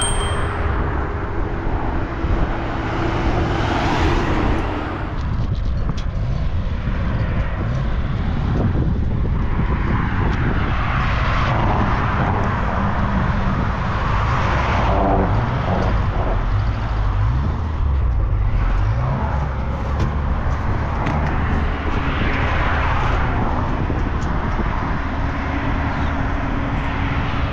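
Motor-vehicle traffic: a steady low engine rumble, with the noise of vehicles swelling and fading several times as they pass.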